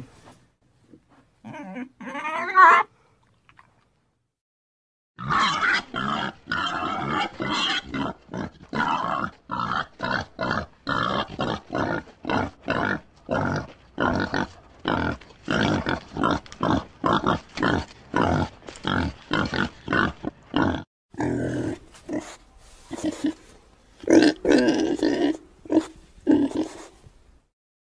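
Pigs grunting in a quick, even series of short grunts, about two a second, after a short squeal near the start. The grunts turn irregular and louder near the end.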